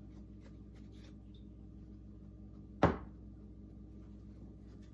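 Flour being shaken inside a lidded plastic Tupperware container, faint, with one sharp knock about three seconds in.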